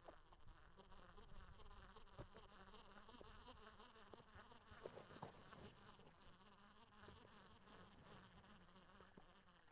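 Faint buzzing of a flying insect hovering close by, with a few light clicks about two and five seconds in.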